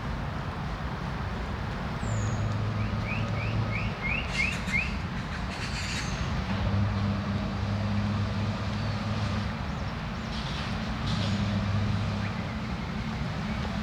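Steady low rumble of traffic with birds chirping over it; a few seconds in, a bird gives a quick run of about seven short rising chirps.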